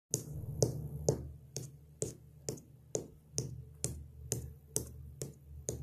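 A steady snapping beat keeping time for a rap: about two sharp snaps a second, evenly spaced, over a low steady hum.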